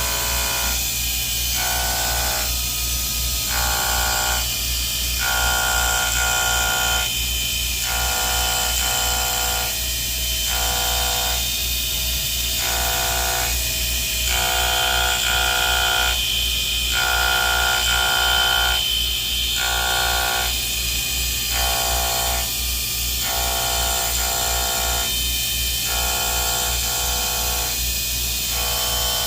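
Background music with a melody of changing notes, over a steady low hum and a high hiss.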